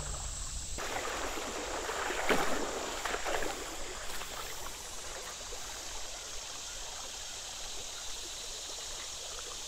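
Creek water running over a shallow gravel riffle, a steady rushing hiss that comes in abruptly about a second in and swells a little for a second or so, over a constant high insect drone.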